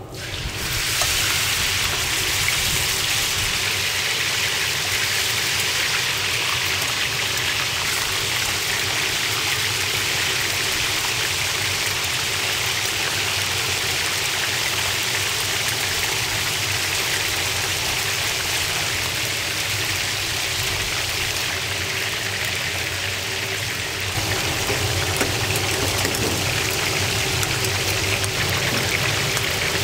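Meat sizzling on a hot grill: a loud, steady, dense hiss with no speech over it.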